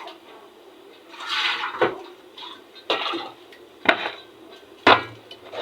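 Washed meat and its water tipped into a cooking pot: a short splash about a second in, followed by four knocks of meat and utensils against the pot, about a second apart.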